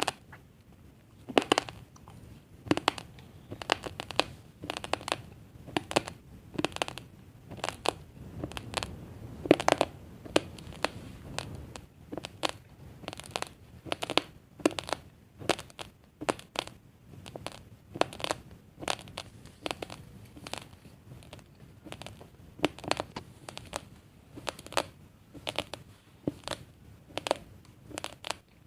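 Close-up crunching of raw basmati rice grains being chewed, in a steady run of sharp crunches about two a second.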